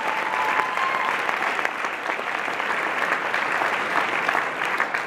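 Audience applauding steadily, a dense clapping from many hands, with one held high note from the crowd over the first second.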